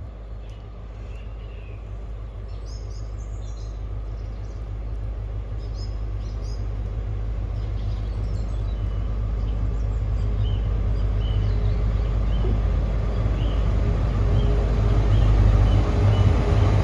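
Diesel rumble of a Class 43 HST power car growing steadily louder as the train pulls into the station, with birds chirping over it.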